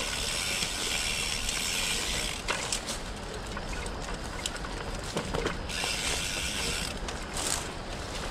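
Bicycle on a rough dirt single track: the rear hub's freewheel ratchet buzzing in spells as the rider coasts, over the steady rumble and rattle of tyres and frame on the trail. The buzz stops about a quarter of the way in and returns for a while past the middle.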